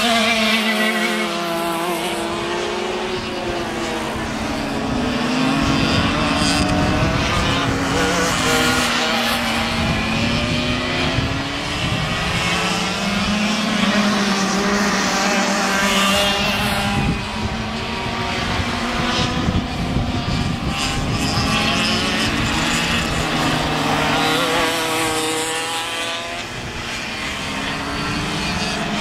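Several racing kart engines running hard on a circuit, their pitch climbing and falling again and again as the karts accelerate out of corners and back off into them, the engine notes overlapping one another.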